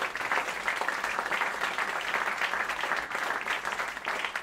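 Audience applauding, a dense clatter of many hands clapping that thins slightly near the end.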